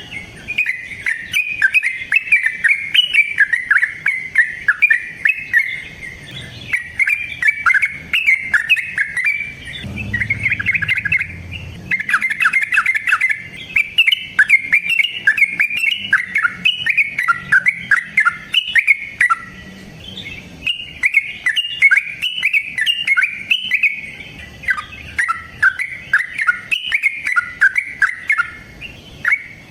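Yellow-vented bulbul (trucukan) singing its long rolling song: a near-continuous run of rapid, bubbling, chattering notes with only brief pauses.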